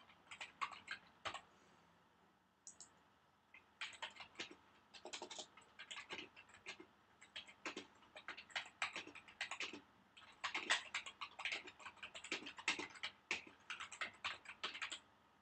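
Typing on a computer keyboard, a quick run of keystrokes. There is a short run, then a pause of about two seconds, then steady typing for the rest.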